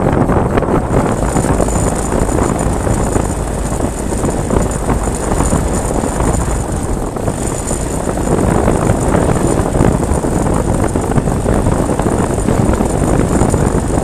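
Motorcycle riding at speed: wind rushing over the microphone mixed with engine and road noise, loud and steady.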